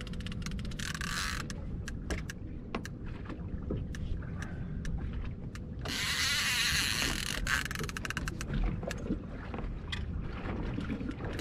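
Wind and water noise aboard a small fishing skiff: a steady low rumble with scattered sharp clicks and knocks. A loud hiss swells about six seconds in and drops away about four seconds later.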